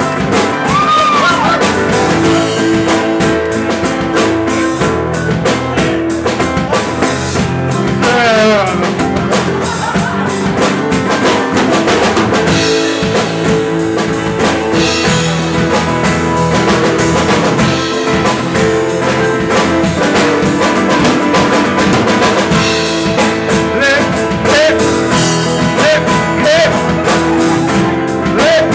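Rock song playing loudly, with drum kit and guitar and a voice singing in places.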